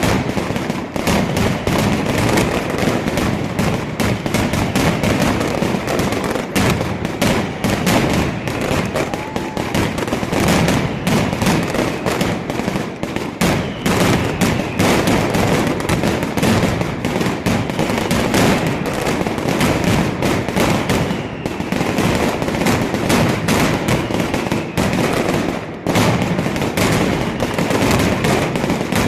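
Mascletà: a dense, unbroken barrage of firecrackers exploding in rapid succession, cracks and bangs overlapping with hardly a gap.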